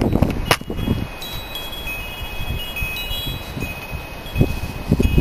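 Wind chimes ringing, several clear high tones sounding one after another and held, over wind rumbling on the microphone. A sharp knock about half a second in as the camera is handled, and a couple of low thumps near the end.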